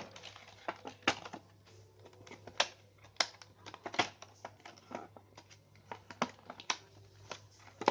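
Hard plastic product packaging being cut and opened by hand: irregular sharp clicks and crackles of the plastic, several a second.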